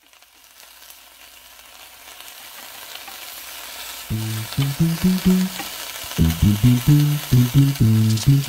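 Thin slices of beef flat iron sizzling in a nonstick frying pan as chopsticks turn them, the hiss growing louder over the first few seconds. About four seconds in, low background music notes come in over the sizzling.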